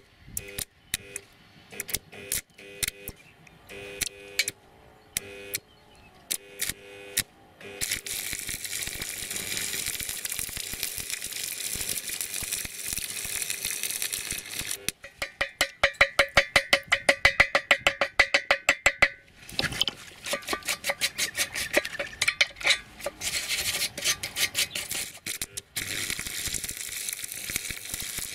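Stick (arc) welding on a steel tube corner: the electrode arc crackling and sputtering, in short stop-start bursts for the first several seconds and then as a steady crackling hiss. Around the middle it turns into a fast, even stutter of loud pops for a few seconds, then goes back to crackling.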